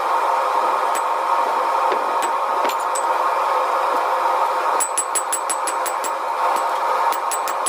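Hammer striking steel on an anvil, each blow ringing sharply: a few scattered blows, then steady runs of about three a second from about five seconds in, all over a continuous steady roar.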